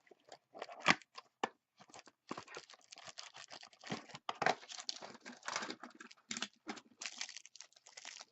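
Packaging of a trading-card hanger box being torn open, with irregular tearing and crinkling of wrapper and cardboard and a few sharp snaps.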